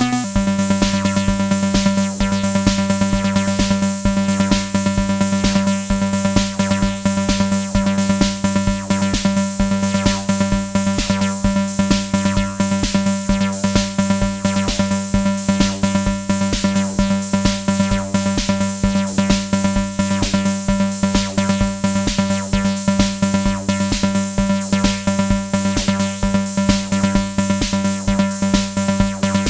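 Erica Synths Bassline analog bass synthesizer playing a fast, evenly pulsing sequenced pattern that stays on one pitch, with a bright, buzzy tone.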